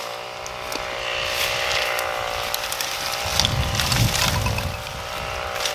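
A steady motor-like hum with evenly spaced overtones, with scattered knocks and clicks and a low rumbling rush about three seconds in.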